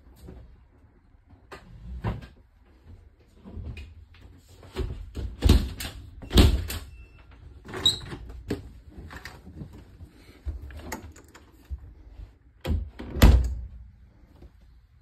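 Irregular knocks and clunks of an RV's interior doors and cabinets being handled, opened and shut. The loudest thumps come about five and a half, six and a half and thirteen seconds in.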